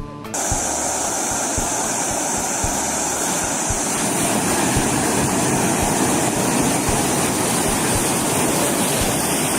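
Loud, steady roar of rushing floodwater, cutting in suddenly just after the start.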